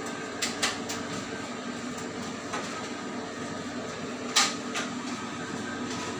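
Steady mechanical hum of a refrigerated cake display chiller, with a few sharp clicks and knocks; the loudest knock comes about four and a half seconds in.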